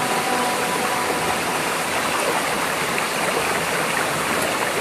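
Swollen, muddy floodwater rushing fast through a channel: a steady, dense rush of water that does not let up.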